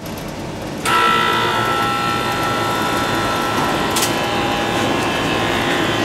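Air conditioner compressor starting up about a second in, then running steadily with a hum and whine. It is pulling the suction side down against a shut suction line valve, as in a compressor pump-down vacuum test. A brief click sounds about four seconds in.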